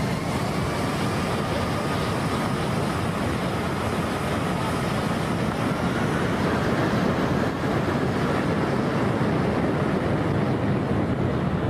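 Jet airliner engines at high thrust: a loud, steady rush of jet blast and wind on the microphone, with a faint whine rising slowly in pitch.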